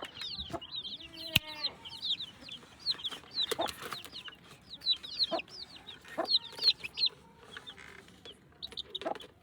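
Young chicks peeping nonstop: many short, high cheeps that each fall in pitch. A hen clucks low now and then among them. There is a sharp click about a second and a half in.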